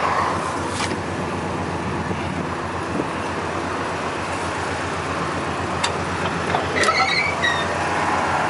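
Car engine idling steadily with an even low rumble. A few short chirps sound about seven seconds in.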